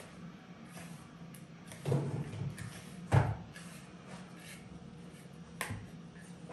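Kitchen utensils knocking and clicking against bowls: a few sharp knocks about two seconds in, the loudest just after three seconds, and one more near the end, over a steady low hum.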